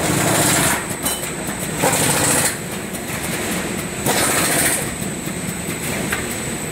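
Wide belt sander running: a steady machine hum with a thin high whine, and three louder hissing surges, each lasting under a second, about two seconds apart.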